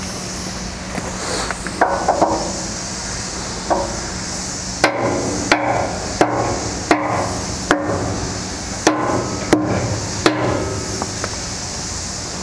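About eight sharp hammer blows, roughly one every 0.7 seconds from about five to ten seconds in, each with a short metallic ring, as a new piston cup is tapped onto a hog pump's hydraulic cylinder rod. A few loose clinks and knocks of handling parts come earlier, over a steady low hum.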